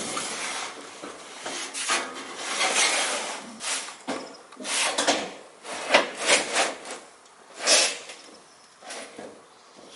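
A corrugated roofing sheet scraping and rubbing over a shed roof as it is lifted and pushed into place, in a series of rough scrapes of about a second each with a few sharper knocks.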